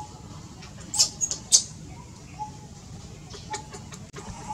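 A few short, shrill animal calls in quick succession about a second in, the loudest sounds here.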